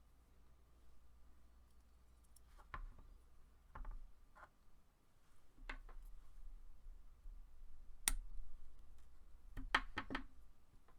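Scattered light clicks and taps of hard resin garage-kit parts being handled and fitted together, with a short cluster of clicks near the end.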